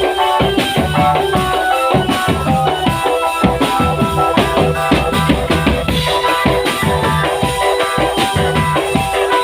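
Music with a driving drum beat under a melody of held notes, playing without a break.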